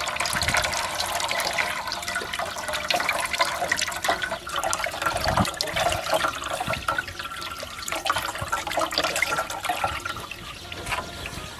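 Grassy cow stomach-content liquid being poured and strained through a sieve, splashing and trickling unevenly, with many small wet clicks from the coarse grass residue being caught.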